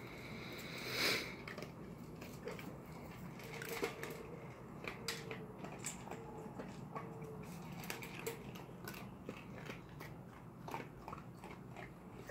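Dog crunching dry kibble from a stainless steel bowl: a run of short, crisp crunches and clicks, with a louder brief noise about a second in.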